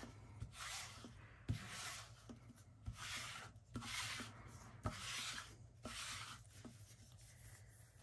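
Sticky lint roller rolled back and forth over a cotton T-shirt: a run of faint rasping strokes about once a second, with a few light knocks.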